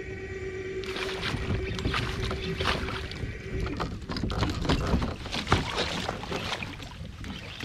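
A hooked fish thrashing and splashing at the water's surface beside a kayak, in a fast run of splashes that starts about a second in and is loudest around the middle. A steady hum runs underneath and stops a little past halfway.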